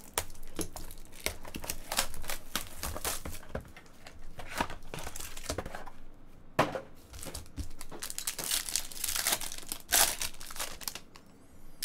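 Cellophane shrink wrap on a trading-card box crinkling as it is slit with a pen and pulled off, then a foil card pack crinkling and tearing open in the hands. The crackling comes in irregular handling bursts and dies down near the end.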